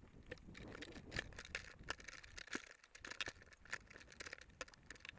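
Bicycles being pushed on foot over loose stony ground: irregular crunches of footsteps on gravel with small clicks and rattles from the bikes. A low rumble of wind on the microphone in the first second or so.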